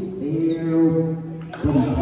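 A single voice holding one long, level, sung-out call, a drawn-out play-by-play exclamation, followed by a sharp thump near the end.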